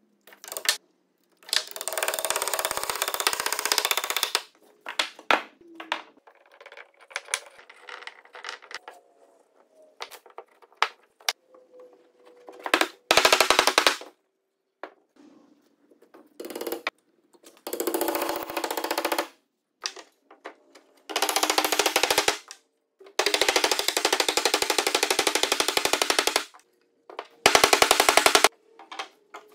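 Short bursts of rapid knocking, rattling and scraping as hardwood joinery parts are fitted together and tapped home with a wooden mallet. Each burst starts and stops abruptly, with near-quiet gaps between.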